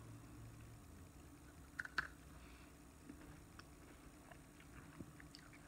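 Faint mouth sounds of a crisp ice cream cone being chewed: two sharp crackles about two seconds in, then a few softer clicks.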